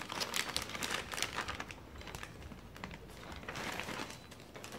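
Plastic anti-static bag crinkling and rustling in irregular crackly bursts as a motherboard is pulled out of it, busiest at the start and again near the end.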